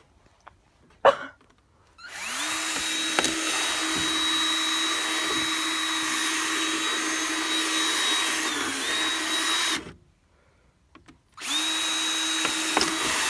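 Cordless drill spinning up and drilling through the plastic wall of a 5-gallon bucket. It runs at a steady pitch for about eight seconds, stops, and starts again near the end.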